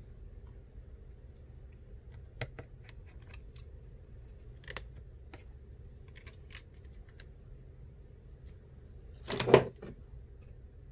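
Light clicks and taps of small metal tools and phone parts being handled during iPhone 7 reassembly, scattered and irregular, with a louder brief clatter about nine and a half seconds in.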